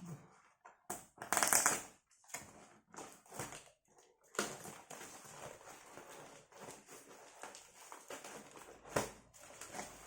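Packaging being torn open and rustled while a box is unpacked: a loud crinkly rip about a second in, then continual rustling and handling noise with a sharp click near the end.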